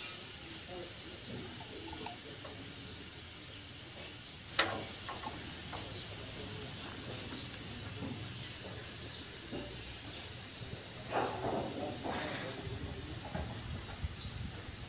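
A steady high hiss, typical of compressed air from a paint spray gun, with one sharp click about four and a half seconds in.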